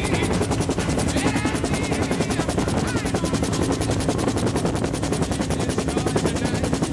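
Bell UH-1 Huey helicopter in flight, heard from inside the cabin: its two-bladed main rotor beats in a fast, even chop over a steady engine drone.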